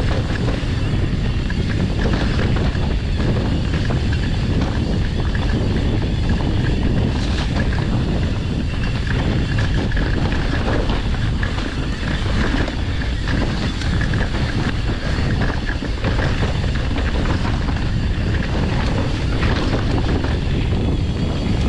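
Wind rumbling on an action camera's microphone over the noise of a Santa Cruz Nomad full-suspension mountain bike riding fast down a dirt forest trail: tyres on dirt with constant small rattles and knocks from the bike.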